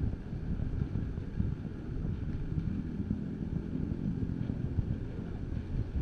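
Wind buffeting the microphone outdoors: an uneven low rumble that rises and falls.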